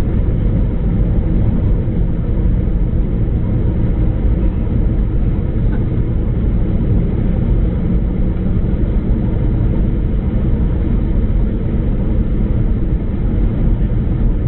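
Steady rumble of engines and airflow inside an Airbus A319 cabin on approach, heaviest in the low end and unchanging throughout.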